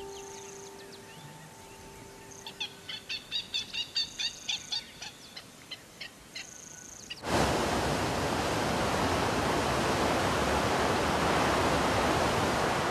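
A run of short, high bird chirps, about three a second, then a sudden cut to the steady rush of a flooded river, its muddy water churning fast over rocks. The rushing water is the loudest sound.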